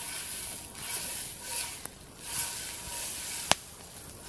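Butter sizzling as it melts in a hot cast iron pan over campfire coals. The sizzle swells and fades in waves as the butter is pushed around the pan, and there is one sharp pop about three and a half seconds in.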